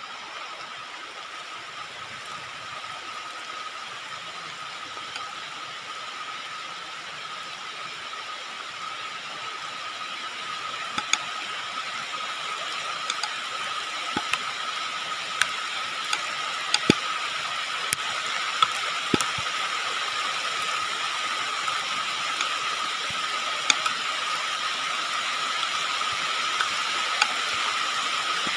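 A steady, high-pitched insect drone with one held tone, slowly growing louder, and scattered sharp clicks from about a third of the way in.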